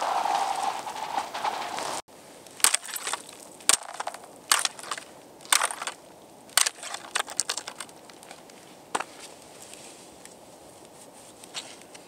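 Ice skate blades gliding over thin new black ice for about two seconds, then a metal-tipped ice pole stabbing down into the 45 mm black ice in a series of sharp, irregular blows, chipping and crushing a test hole through it; the blows thin out after about nine seconds.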